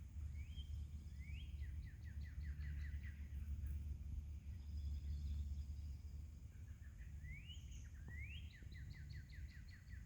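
A songbird singing: a phrase of rising whistles followed by a quick run of short falling notes, sung twice, over a steady low rumble.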